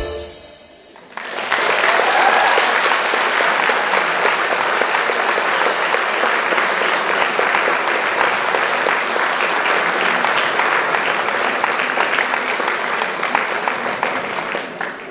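Audience applause. It starts about a second in, just after the music stops, runs dense and steady, and fades out near the end.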